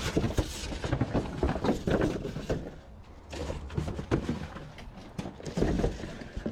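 Irregular knocking and clattering of scrap and junk being handled and shifted around in a dumpster, a quick uneven run of hard knocks.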